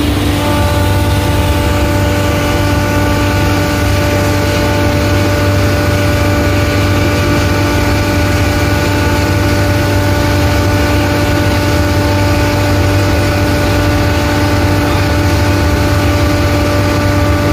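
Belt-driven hammer mill (pulverizer) running steadily while grinding maize for cattle feed: a loud, even drone with a constant whine that holds without change.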